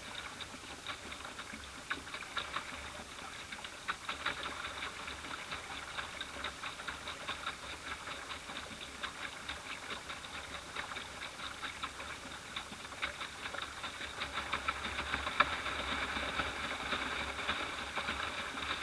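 Small waves lapping against a boat's hull, a dense, irregular patter of light ticks and slaps that grows louder in the last few seconds.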